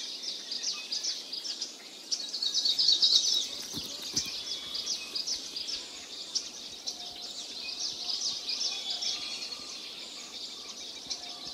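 A chorus of small birds chirping rapidly and continuously, in dense bursts of short high notes, with two faint low knocks about four seconds in.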